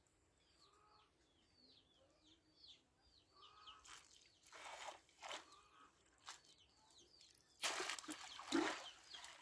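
Birds chirping over and over in short, falling high calls, fairly faint. A few brief rushing noises come in from about four seconds in, the loudest about eight seconds in.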